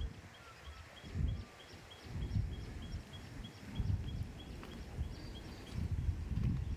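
Wind buffeting the microphone in low rumbling gusts, about one a second, over a short high chirp that repeats about three times a second and stops about five and a half seconds in.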